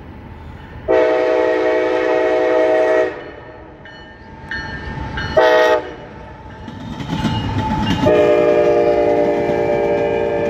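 Diesel freight locomotive's multi-chime air horn sounding the grade-crossing signal. It gives a long blast about a second in, a softer note, a short loud blast about halfway, and a long blast that starts about three seconds before the end. Under the last blast is the rumble and wheel clatter of the train passing over the crossing.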